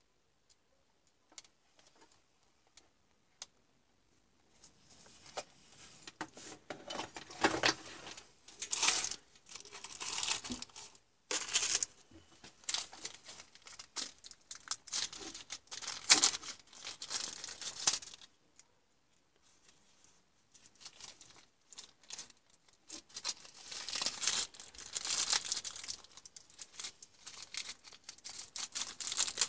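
A few faint clicks, then irregular bursts of rustling and crinkling from about four seconds in as the small LED lamp and its clear plastic housing are handled over a paper towel, with a short pause a little after the middle.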